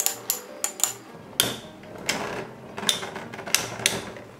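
Two metal spinning tops (Infinity Nado 3) clashing in a plastic battle stadium: irregular sharp clicks and knocks as they strike each other and the arena. The clicks come close together in the first second, then thin out.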